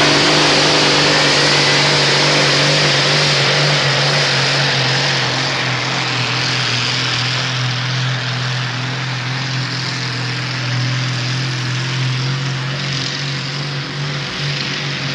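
Modified pulling tractor's engine running flat out under load as it drags the brake sled, a loud steady drone with a strong low hum over a wash of noise, easing slightly in loudness as the tractor moves away.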